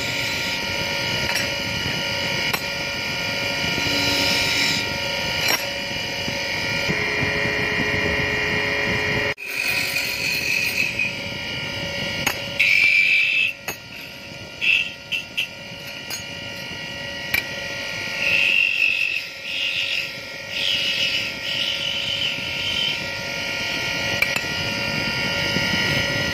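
Wood lathe running with a steady motor hum while a flat chisel scrapes and cuts a spinning wooden spindle, the cuts coming as short bursts of scraping, most of them in the second half. The sound drops out briefly about nine seconds in.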